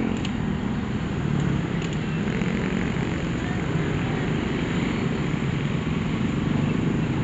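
Many motor scooters and motorcycles, with a few cars, riding over a railway level crossing: a steady mix of small engines running and tyres rolling.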